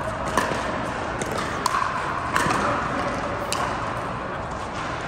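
Sharp pops of pickleball paddles striking a hard plastic ball, about five hits at uneven intervals, each with a short echo, over the steady hum of a large hall.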